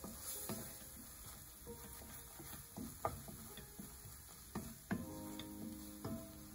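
Sauce sizzling in a stainless steel pan while a wooden spatula stirs it, scraping and knocking irregularly against the pan, with sharp knocks about three and five seconds in.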